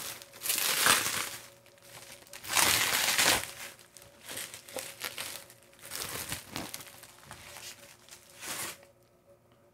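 Plastic bubble wrap crinkling and rustling as it is pulled off a boxed vinyl figure. The loudest bursts come about half a second in and again around three seconds in, followed by softer rustles.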